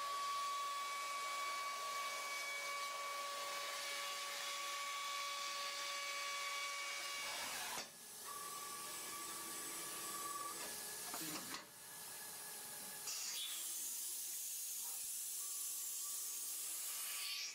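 CNC milling machine running: a steady high whine with hiss, briefly dropping out and resuming about eight seconds in and again near the middle, with a stronger high hiss over the last few seconds.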